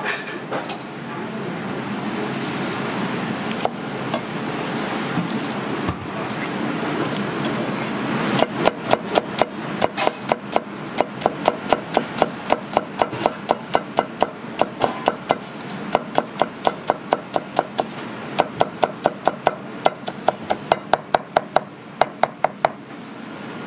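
A cleaver chopping fast on a wooden cutting board, about three or four strokes a second with a couple of short pauses, starting about eight seconds in. Before it there is a steady kitchen hiss.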